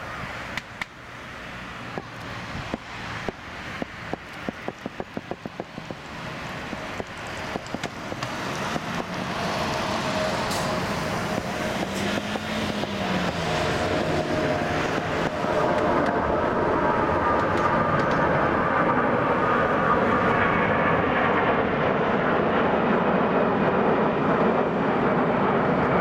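Four-engined Airbus A340-300 jet climbing out after takeoff, its engine roar swelling steadily and then staying loud as it passes overhead, with a whining fan tone riding on the rumble. A quick series of sharp clicks sounds during the first several seconds.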